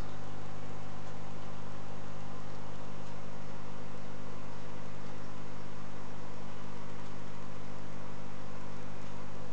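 Aquarium pump running: a steady low electrical hum with an even hiss over it.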